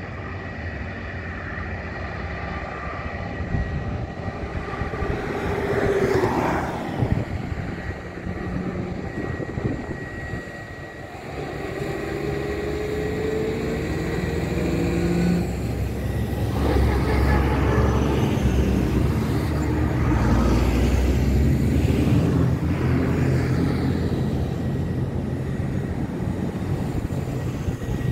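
Airbus A320 jet engines running as the airliner taxis, a steady whine over a low rumble. Its pitch rises briefly a little under halfway through, and it grows louder and deeper in the second half.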